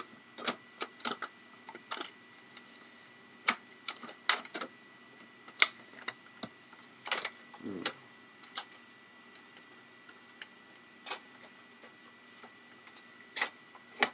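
Irregular sharp clicks and knocks of hard plastic console case parts being handled and pressed together, an Xbox 360 Slim's faceplate and outer casing being fitted back on.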